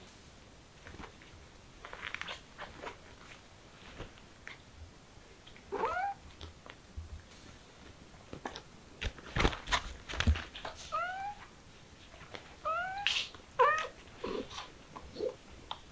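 Kittens mewing: short high-pitched mews, one about six seconds in and several in quick succession from about eleven seconds, among scattered knocks and scuffles from their play.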